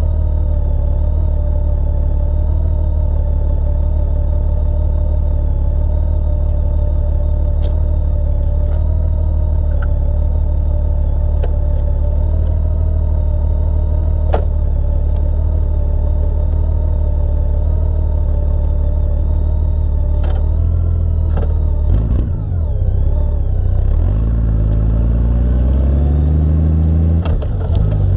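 Honda Gold Wing motorcycle engine idling steadily, then revving and pulling away about twenty seconds in, rising in pitch as it accelerates, with a brief dip at a gear change near the end.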